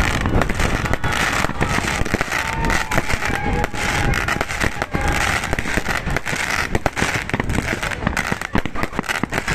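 New Year fireworks going off in a dense, continuous barrage of overlapping bangs and crackles.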